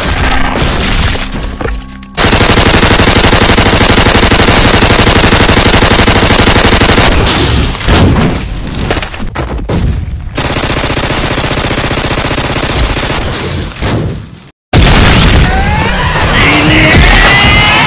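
Cartoon fight sound effects over background music: long bursts of rapid machine-gun fire, with a short break between them and a hit near the end.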